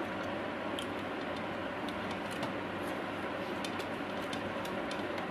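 Eating sounds: scattered small clicks and smacks from chewing and from fingers working rice and curry, over a steady hiss with a low hum.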